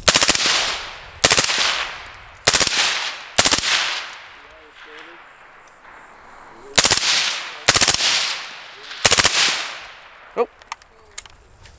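A suppressed 5.56 AR-pattern rifle with a Bushmaster Muta direct-thread suppressor firing full auto: seven short bursts of a few rounds each, in two groups with a pause of about three seconds between them. A few light clicks follow near the end.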